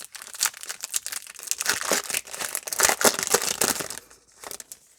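Plastic foil wrapper of a baseball card pack crinkling and tearing as it is opened and handled, a dense crackling that dies down about four seconds in.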